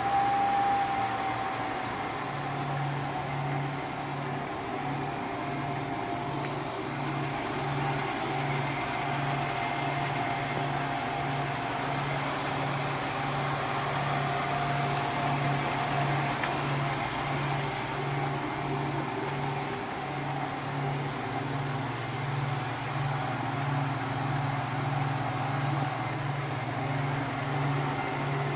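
Litton glass lathe running: a steady low hum that pulses evenly a little over once a second, over a constant hiss.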